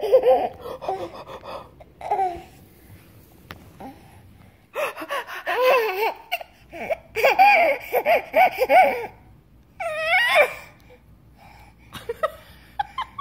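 Baby laughing in bursts of high-pitched giggles, with a long run of laughs from about five seconds in and a rising squeal a little before the end.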